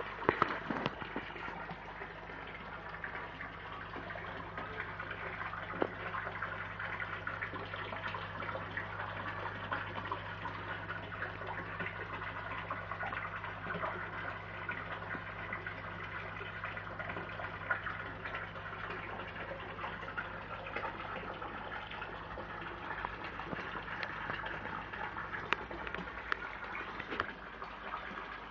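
Water running and splashing steadily into a fish pond, over a low steady hum.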